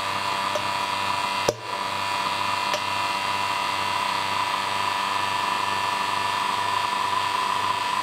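Electric vacuum pump running steadily as it evacuates a vacuum chamber, with a steady whine over a low hum. One sharp pop about a second and a half in.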